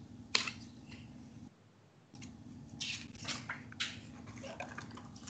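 Soft rustling and light taps of a photo book's pages being turned and handled, over a low steady hum; the sound drops out to silence for a moment about a second and a half in.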